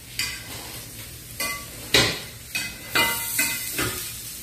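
A string of about seven sharp, ringing clinks of a utensil against cookware, over the steady sizzle of okra frying in a skillet.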